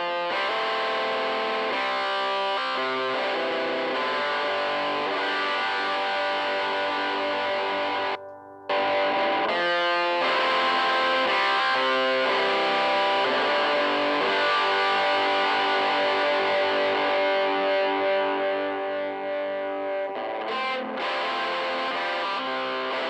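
Electric guitar playing distorted chords through Joyo crunch distortion pedals into a Fender tweed Deluxe 5E3-style valve amp. About eight seconds in the sound cuts out for half a second as the looper switches from one pedal to the other.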